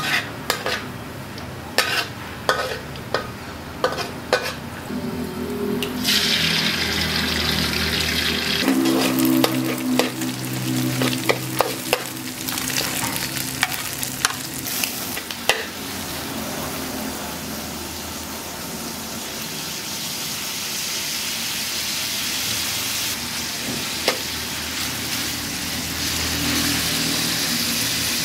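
Garlic, egg and diced carrot sizzling in a steel wok, with a metal spatula clicking and scraping against the pan through the first half. A steady frying hiss carries on to the end.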